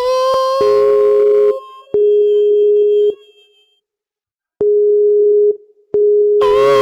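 A loud, steady electronic beep tone, switched on and off in stretches of about a second with a click at each start and a silent gap of about a second in the middle. A buzzier, slightly wavering note sounds a little above it for the first second and a half and again near the end.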